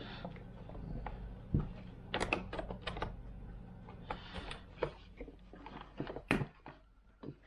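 Irregular light clicks and knocks of plastic parts and wires being handled and fitted, in small clusters, with the sharpest click about six seconds in. A low steady hum underneath stops at about the same moment.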